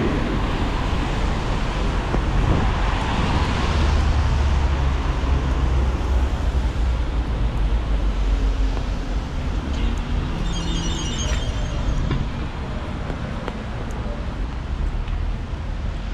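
Traffic on a rain-wet street: tyres hissing on wet asphalt and engines rumbling past, loudest a few seconds in. About ten seconds in comes a brief high-pitched ringing sound.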